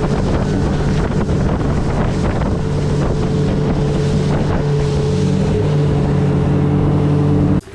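Fishing boat's outboard motor running steadily at speed, with wind buffeting the microphone. It cuts off suddenly near the end.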